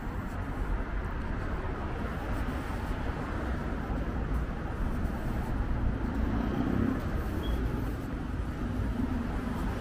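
Street ambience dominated by a steady hum of road traffic, swelling slightly about two-thirds of the way through as a vehicle passes.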